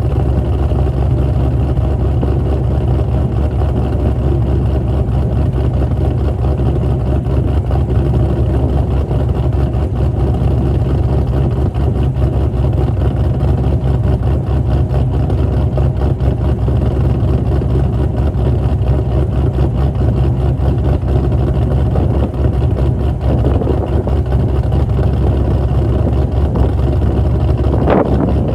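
2005 Pontiac GTO's LS2 6.0-litre V8 idling steadily shortly after a cold start, a deep even rumble. Near the end comes one brief sound that rises in pitch.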